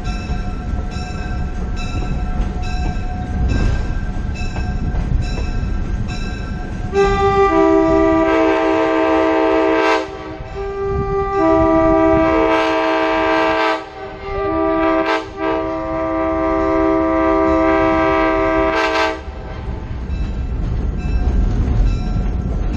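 Locomotive horn sounding the grade-crossing signal in a chord of several tones: two long blasts, a short one and a final long one, over the steady rumble of the train rolling on the rails. Before and after the horn, the locomotive bell rings about once a second.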